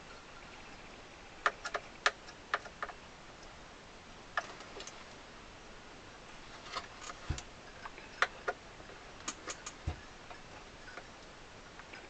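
Irregular light clicks and ticks of a screwdriver working at a small strap screw on an accordion case, the tip struggling to get purchase in the screw head. The clicks come in small clusters, with a couple of duller knocks among them.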